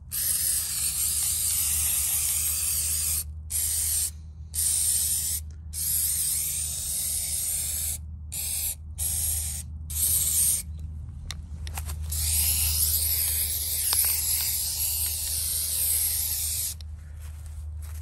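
Aerosol can of spray rubber coating hissing in long bursts, broken by several short pauses as the nozzle is released and pressed again.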